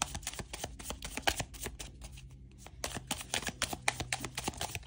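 A tarot deck being shuffled by hand: quick runs of card clicks and flicks, thinning out briefly about two seconds in before picking up again.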